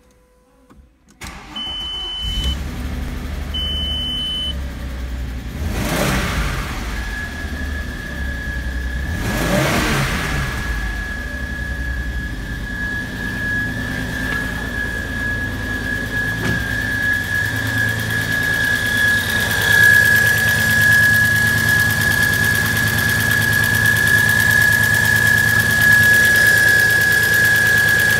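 Audi A6 C5's 2.8-litre V6 (APR) engine cranking and catching about a second in, then running at idle, with two short warning chimes from the instrument cluster just after start. A steady high-pitched whine rides over the idle from several seconds in and grows stronger.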